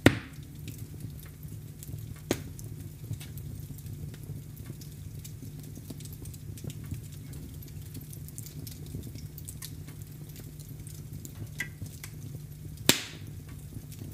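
Wood fire burning in a fireplace: many small crackles over a steady low rumble, with a sharp loud pop right at the start, a smaller one about two seconds in, and another loud pop near the end.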